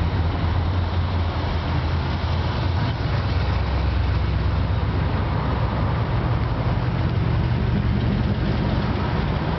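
Classic American cars driving slowly past one after another, their engines running with a steady low note that shifts as each car passes.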